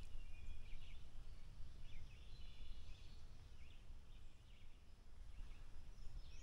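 Faint bird chirps, short and scattered, over a low rumble.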